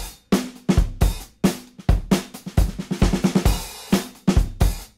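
Background music with a steady drum beat: deep kick thumps, snare hits and hi-hat.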